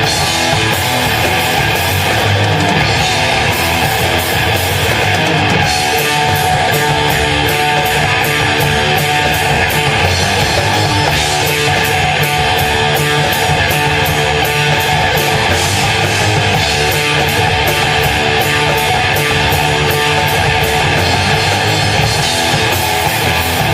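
Heavy rock band playing live and loud: distorted electric guitar, bass and drum kit. A fast, steady beat of drum and cymbal strokes drives the song from about six seconds in.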